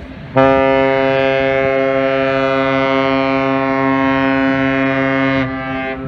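AIDAsol cruise ship's horn sounding one long, steady blast of about five seconds, starting and stopping abruptly.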